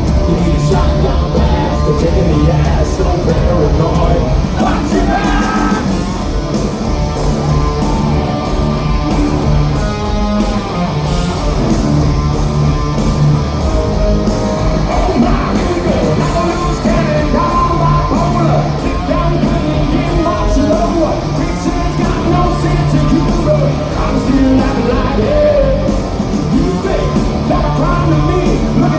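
Live hard rock band playing loud and full, with drums, bass, electric guitars and a singer's voice over a steady beat with cymbal hits. It echoes like a large hall.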